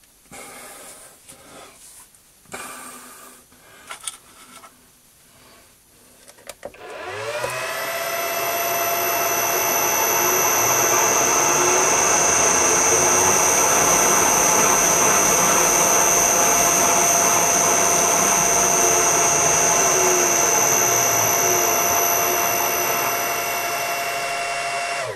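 Metal lathe started up about a third of the way in. Its motor spins up with a rising whine, then runs at a steady speed, turning the chucked workpiece without tailstock support. Faint handling clicks come before the start.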